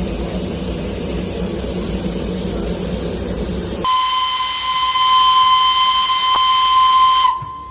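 Steady low rumble of a narrow-gauge steam locomotive. About four seconds in, its whistle sounds one long, steady high note for about three and a half seconds, then cuts off.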